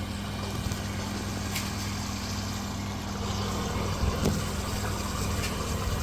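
A steady low mechanical hum with light noise over it, a little louder in the second half, with a faint knock or clatter about four seconds in.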